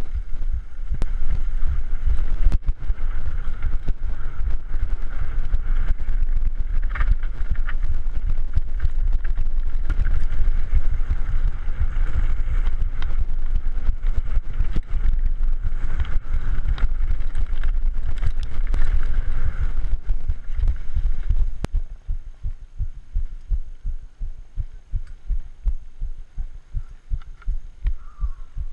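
Mountain bike riding fast down a rough dirt-and-gravel trail, heard from a camera mounted on the rider: a continuous rumble of tyres and rattling frame over the rough surface, full of small knocks. Past the two-thirds mark the rumble drops back to an uneven, pulsing rattle.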